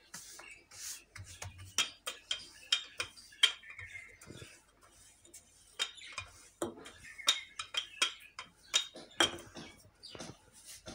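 Wooden rolling pin knocking and rolling on a marble countertop as paratha dough is rolled out thin, with hands patting the dough. The sound is a run of irregular clicks and taps.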